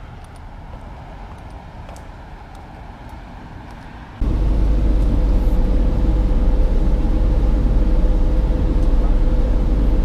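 Faint outdoor noise with a few light ticks for about four seconds, then a sudden cut to the loud, steady low rumble of a city bus in motion, heard from inside the cabin, with a faint steady hum over it.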